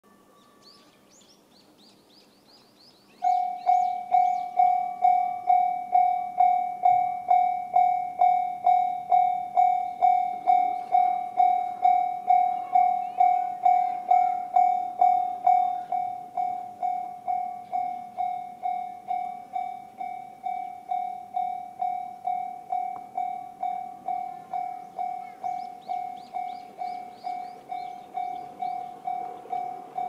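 Japanese railway level-crossing warning bell, the electronic JR standard tone, switches on about three seconds in and dings at a steady, rapid beat. It turns quieter about halfway through, once the barriers are down. Birds chirp faintly before it starts.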